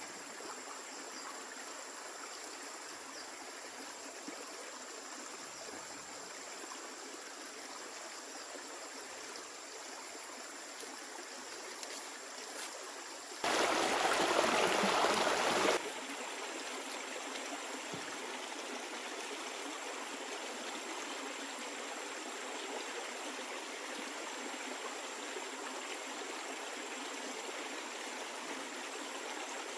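Stream water flowing steadily, with a louder stretch of about two seconds near the middle that starts and stops abruptly.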